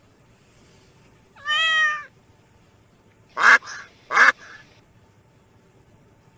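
A kitten meows once, a pitched cry that bends up and down. About two seconds later come two short, loud, harsh cries about two-thirds of a second apart, each followed by a fainter echo-like tail.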